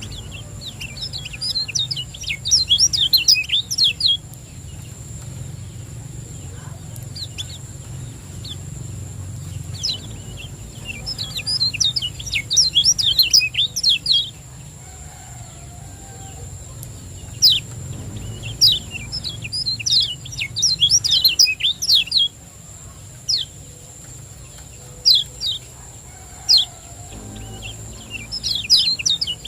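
Kecial kuning, a white-eye, singing in quick bursts of rapid high chirps, several seconds apart with a few single notes between, the 'ciak joss' song. A faint steady high whine runs beneath.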